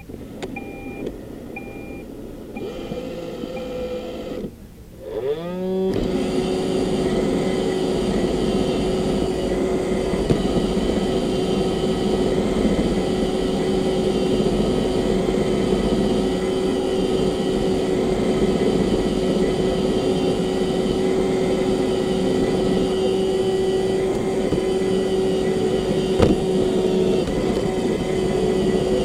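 Roomba robot vacuum beeping a few times, then its vacuum motor spinning up with a rising whine about five seconds in and running steadily with the brushes whirring.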